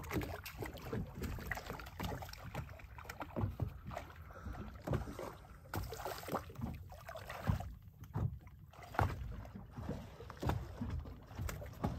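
Water slapping and splashing irregularly at the side of a small boat, with a hooked mahi-mahi thrashing at the surface beside the bow.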